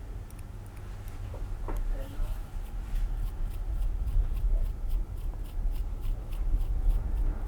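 Small clicks and rubbing of hands and tools handling plastic RC car shock parts, with a run of quick light clicks through the middle and later part, over a low rumble.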